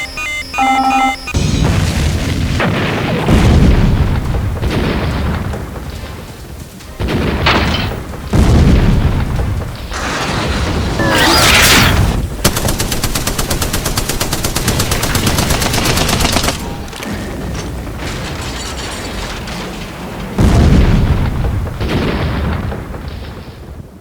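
Battle sound effects: a series of heavy booms and explosions with rapid-fire blaster shots, laid over music. A few short electronic beeps open it, and it fades out at the end.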